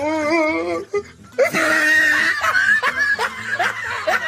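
People laughing loudly, with a run of short, rising laugh bursts in the second half.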